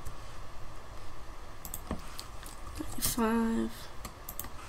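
Scattered clicks of a computer mouse and keyboard as a setting is edited: a few sharp clicks about two seconds in and again near the end. About three seconds in, a voice gives a short hummed 'mm'.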